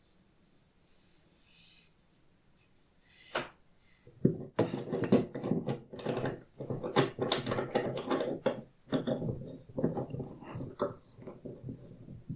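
Hands working the leather belt and its metal buckle. It is quiet at first, then there is a single click, and from about four seconds in come irregular rubbing and scraping with frequent clicks and knocks.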